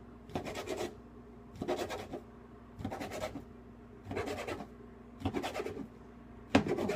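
Knife slicing a rolled tortilla wrap of banana and peanut butter into pieces: about five short scraping strokes, one a little over a second apart, then a sharper, louder stroke near the end.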